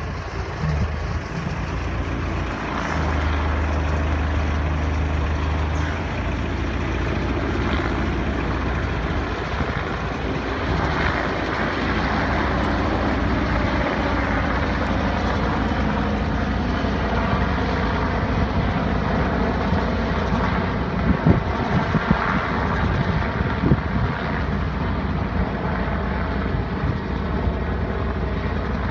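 Two vintage helicopters flying overhead together, a steady drone of rotors and turbine engines, with a few short bumps about three-quarters of the way through.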